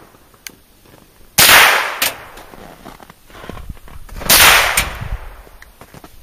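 .22 rifle shots: two sharp cracks about three seconds apart, each trailing off briefly, with a faint click between them.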